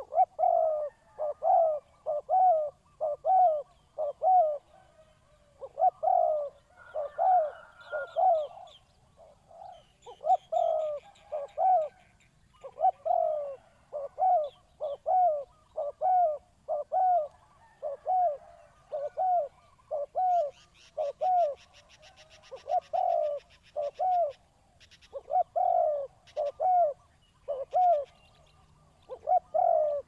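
Spotted dove cooing: repeated coos, each note rising then falling in pitch, grouped in short phrases of several notes with brief pauses between.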